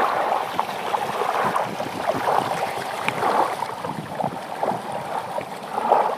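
Running water, a steady rushing with many small irregular splashes, like a creek flowing.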